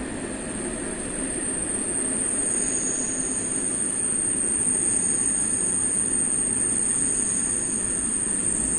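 Passenger train rolling on the rails with steel wheels squealing: a steady high-pitched squeal over the rumble of the running gear, with a second squeal tone joining about two and a half seconds in.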